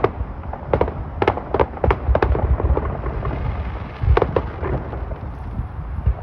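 Distant fireworks going off: a rapid run of sharp bangs and pops, several a second, over a low rumble, with a cluster of louder bangs about four seconds in.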